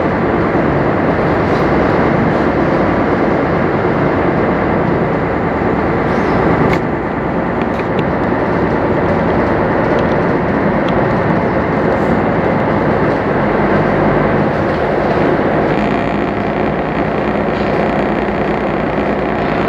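Sightseeing boat's engine running steadily as the boat moves along the shore, a loud even noise with no clear beat.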